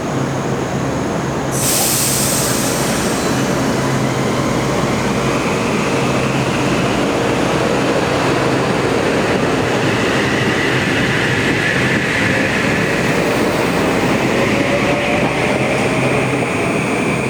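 Passenger train passing close at speed: a steady loud rush of wheels on rail, with a sudden high hiss starting near two seconds in and a faint whine rising over the rush from about ten seconds in.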